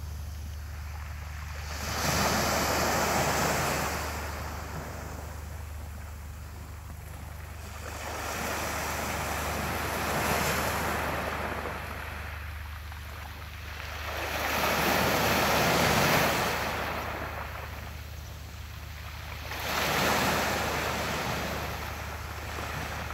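Sea waves breaking on the shore four times, about six seconds apart, each a rush of surf that swells and fades over a few seconds, with a steady low hum underneath.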